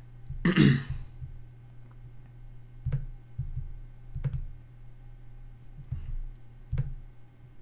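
A man clears his throat once, close to the microphone, about half a second in. Then come three short, sharp computer-mouse clicks a second or two apart, over a steady low hum.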